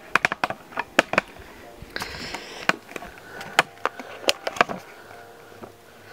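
Handling noise as a camera is moved and set down on a carpeted floor, then scattered light taps and knocks, with a short rustle of fabric about two seconds in.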